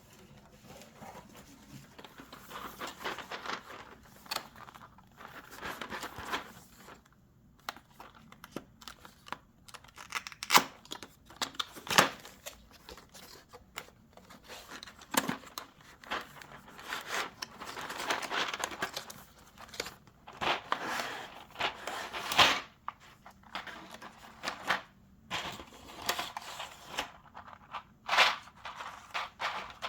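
Hands handling keyboard parts and their packaging: irregular crinkling and tearing with scattered sharp clicks and taps.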